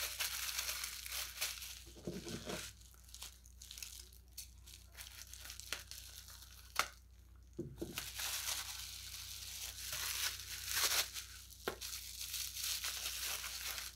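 Wrapping being crinkled and torn by hand to free a small glass jar, in on-and-off rustling spells with a few sharp clicks.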